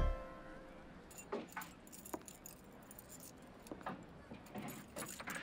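Keys jingling and clicking at a door lock: a few light, scattered metallic clicks.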